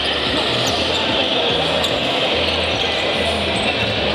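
Basketball bouncing on a wooden gym floor, over the steady din of a large hall with a low repeating bass line.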